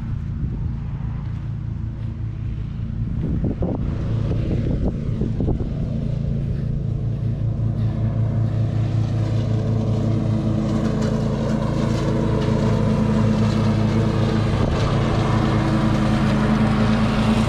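Ride-on mower's engine running steadily, growing louder as the mower drives closer.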